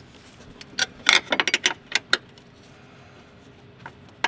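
Ratchet wrench clicking in a quick run of sharp metallic clicks lasting about a second and a half, then one more click near the end, as a mounting nut on the clutch master cylinder is backed off.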